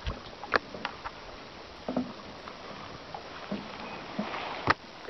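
Small waves lapping and splashing against a drifting plastic kayak hull, with a few sharp knocks on the boat, the loudest near the end.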